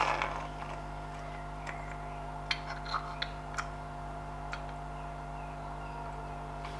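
A few faint, short clicks and taps of metal gear-lever parts being handled as the dust cap is worked onto a Ferguson TED20 tractor gear lever, over a steady low hum.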